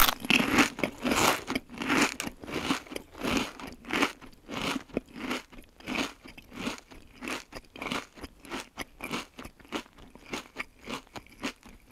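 Loud, close chewing and crunching of crunchy snacks, about two or three crunches a second, going on steadily.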